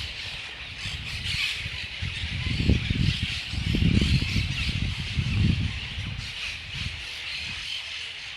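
A large flock of parrots squawking and chattering all at once, a dense continuous din of overlapping calls. Low rumbling gusts come in about the middle.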